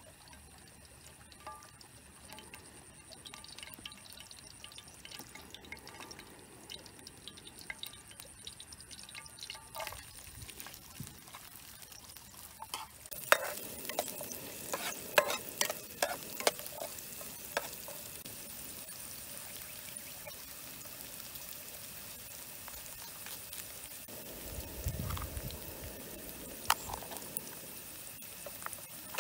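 Garlic and red chilies sizzling in hot oil in a frying pan, a steady hiss that starts about halfway through. A metal spatula clicks and scrapes against the pan as they are stirred. Before that there are only faint knocks.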